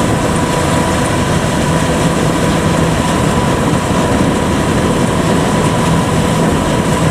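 Kubota DC-105X rice combine harvester running steadily while it cuts and threshes rice: its diesel engine and threshing machinery make a dense, even noise, with a thin steady whine above it.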